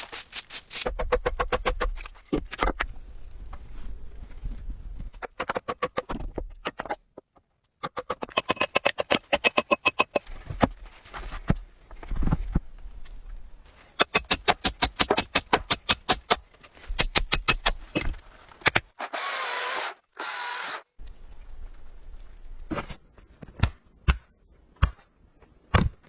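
Rapid runs of sharp knocks, several a second, some with a faint ringing, broken by pauses. There is a short, noisy rush about three-quarters of the way through.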